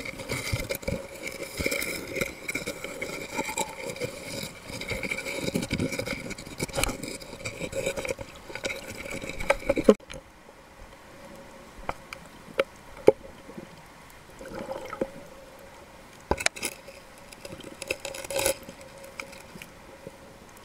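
Underwater sound picked up through a camera housing while snorkelling over a sandy seabed: water movement and gurgling with a steady hum. After a cut about halfway through it turns quieter, with scattered sharp clicks and knocks.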